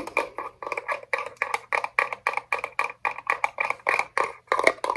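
A small trinket tapped quickly and evenly, about six taps a second, each tap ringing briefly with a clear pitch.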